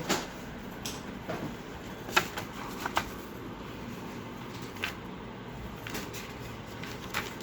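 Small items from an unboxing being handled by hand: scattered light clicks and paper-like rustles, the sharpest about two seconds in.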